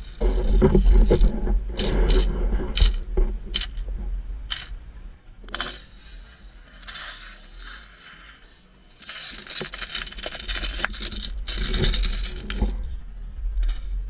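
Sound picked up by a submerged camera: a low rumble of water moving against it, with scattered sharp clicks and scraping and hissing stretches that come and go. It is loudest in the first few seconds and again in the second half.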